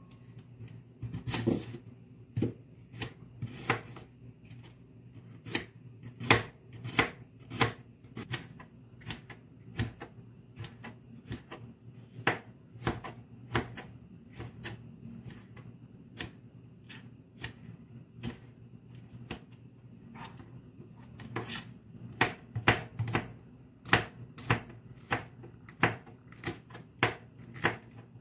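Kitchen knife slicing onion and tomato on a plastic cutting board: the blade clicks sharply against the board at an uneven pace, about one or two strikes a second with some quicker runs.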